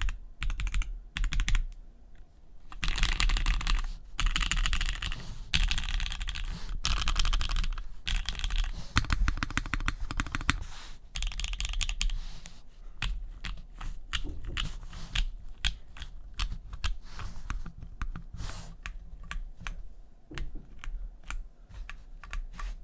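Typing on a Bakeneko60 custom mechanical keyboard with a POM plate, lubed JWK Jwick Black linear switches and GMK keycaps. Fast runs of keystrokes come in the first half, then slower, separate key presses.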